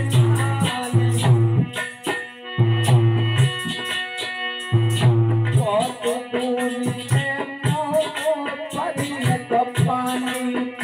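Harmonium playing sustained reed chords and a melody, with rhythmic hand percussion striking steadily throughout: an instrumental accompaniment passage of Alha folk music. The low held chords come in blocks of about a second and a half, with a short break about two seconds in.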